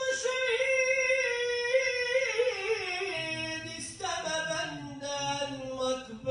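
A man singing a kaside solo into a microphone: a long melismatic phrase without clear words, held on a high note with small ornaments, then stepping down to lower notes about halfway through.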